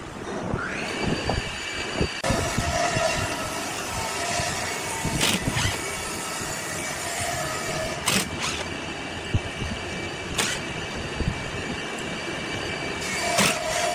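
Cordless drill-driver whining as it spins up about half a second in and then runs steadily, backing out the wood screws that hold a lathe faceplate to a vase, with a few sharp clicks.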